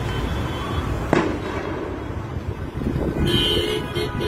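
A sharp bang about a second in and a few more cracks around three seconds, over a low steady rumble: blasts from burning vehicles in a fuel tanker fire.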